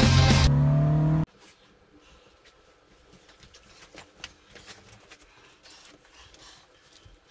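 VW Golf Mk1 engine heard from inside the cabin, rising in pitch as the car accelerates, cut off suddenly about a second in. After that, only faint scattered clicks and knocks in a quiet workshop.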